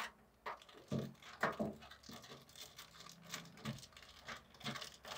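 Bundle of PC case front-panel cables with small plastic connectors rustling and clicking as they are handled, a scatter of short faint taps and rustles.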